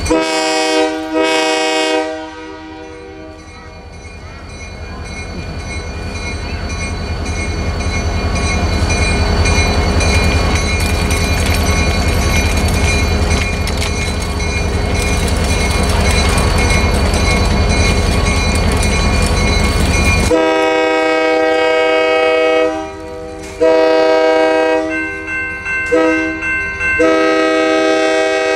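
Locomotive horn of an approaching passenger train: a blast at the start, then a low rumble that grows louder, then about two-thirds in the horn sounds the grade-crossing signal of two long blasts, a short one and a long one.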